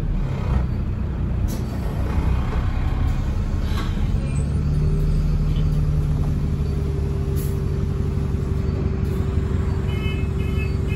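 London double-decker bus's diesel engine heard from on board: the revs fall at the start, then settle into a steady running hum. Near the end a repeating electronic beeping starts.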